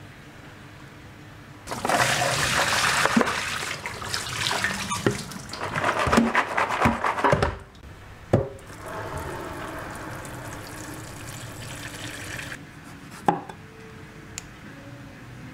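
Kitchen tap running into a plastic bowl of tomatoes in a stainless-steel sink as the tomatoes are rinsed. The water runs hard for about six seconds, then more gently until about two-thirds of the way through, with a few knocks among it.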